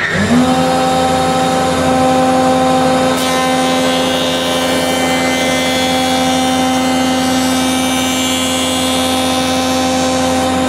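Jointer switched on: its motor and cutterhead spin up in the first moment, then run with a steady whine while a test board is fed across the knives on edge against the fence.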